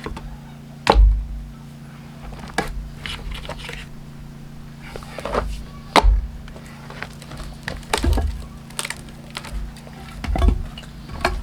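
Heavy blows of a splitting tool striking a round of larch, one every second or two. The loudest come about a second in, at six seconds and near the end. The wood holds together under the blows rather than bursting open.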